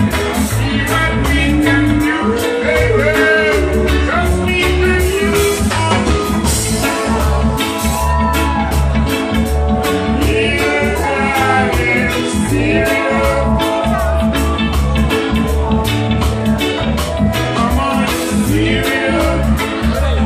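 Live band playing loud amplified music: a man singing into a microphone over electric guitars, bass and a drum kit, with a steady beat.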